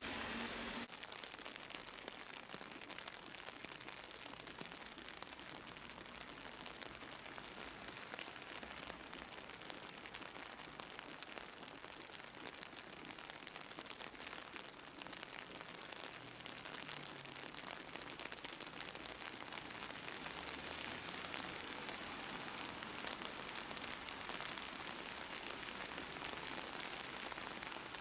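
Steady rain falling, heard from under an umbrella, growing a little heavier about twenty seconds in.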